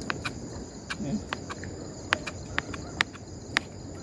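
Knife cutting food on a plate: a series of irregular sharp clicks as the blade strikes the plate. Under it runs the steady high chirring of night insects.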